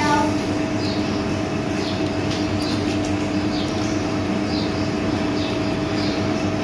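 Engine oil being poured from a plastic bottle through a funnel into a motorcycle engine, with short high falling sounds every second or so, over a steady machine hum.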